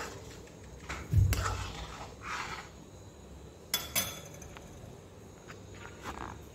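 Metal ladle stirring thick rice pudding in an aluminium pan, with soft scrapes and a few sharp clinks against the pan. A low thump about a second in.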